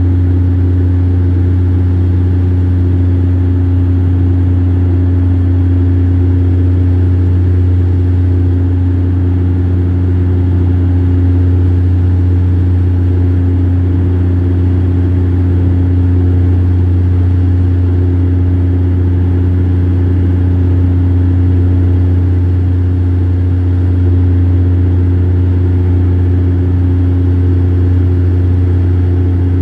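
Steady drone of a Bombardier DHC-8 Q400's turboprop engine and propeller, heard inside the cabin beside the engine while in flight. A strong low propeller hum with a few higher tones above it swells and fades slightly every few seconds.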